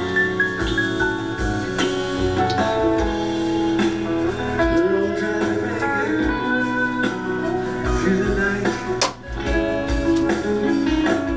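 Music with guitar over a steady beat, briefly dipping in loudness about nine seconds in.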